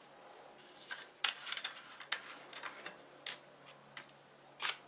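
Light handling noise from a clear plastic bottle: scattered clicks and crinkles as it is picked up and its screw cap is twisted off, with small plastic items set down on the table. The sharpest clicks come about a second in and near the end.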